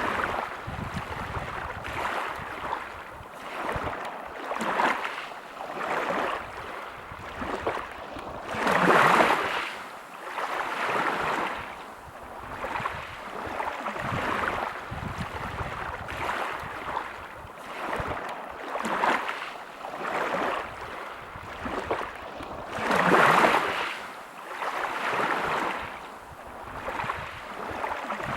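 Waves washing over a pebble beach, a noisy hiss that swells and ebbs about every second or two, with two larger waves breaking about nine seconds in and again near the end.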